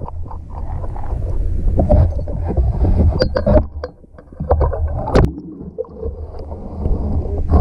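Uneven low rumble with scattered short knocks and clicks, the loudest knock about five seconds in.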